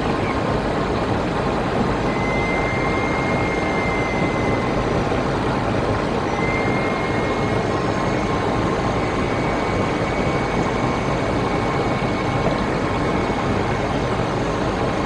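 Steady rushing noise of airflow and engines heard inside an airliner cockpit on final approach, with a faint thin tone that comes and goes.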